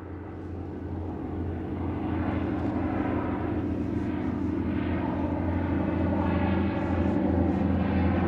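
An engine running steadily with a low drone, growing slightly louder.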